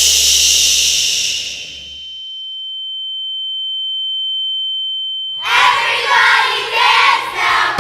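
A burst of noise that fades away over about two seconds, then a single steady high pure tone held for about four seconds, then a group of voices, like children singing together.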